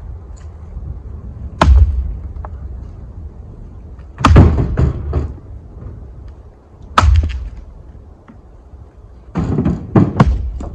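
Firewood being handled: four loud, heavy wooden thuds a couple of seconds apart, some followed by a short clatter of smaller knocks as pieces land and settle, over a low wind rumble.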